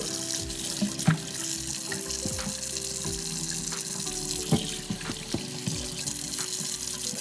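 Tap water running into a sink as 3D-printed robot chassis parts are rinsed of salt, with a few sharp knocks. Background music with held notes plays underneath.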